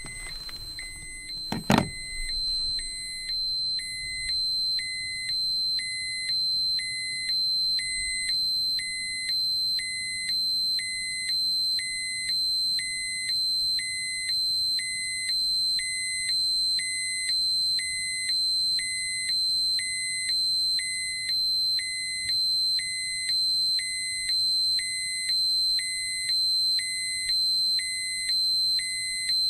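Electronic radiation dosimeter alarm: a high steady whine with a lower beep pulsing evenly a little faster than once a second. A single sharp click, the loudest sound, comes just before the beeping starts, about two seconds in.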